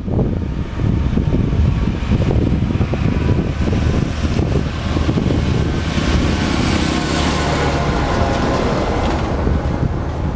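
Farm tractor towing a silage trailer along a road: engine and tyre noise growing as it approaches, loudest as it passes close about six seconds in, then fading as it drives away, with wind buffeting the microphone.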